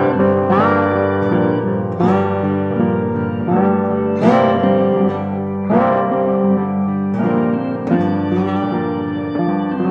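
Background music: plucked guitar notes over held tones.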